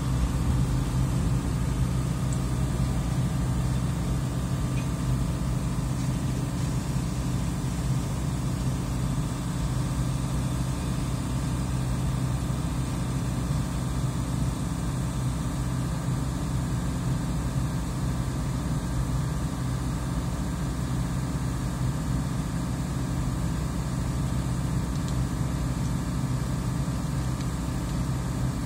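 Diesel engine of a stone train running steadily, a low even hum.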